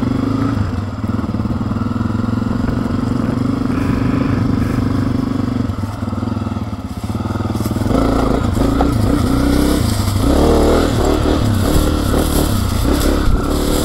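Honda CRF250F's single-cylinder four-stroke engine running as the bike is ridden. It is steady at first, eases off briefly about six seconds in, then pulls harder and rougher. Heard through the helmet-mounted camera's built-in microphones, with wind rumbling on them.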